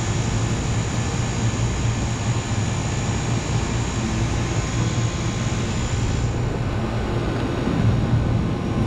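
Walk-in cooler's condensing unit running steadily, its compressor and condenser fan giving a continuous low hum. A faint high whine stops about six seconds in.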